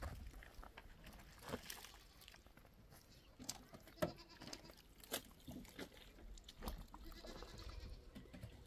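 Goats bleating faintly, with a few sharp clicks scattered through.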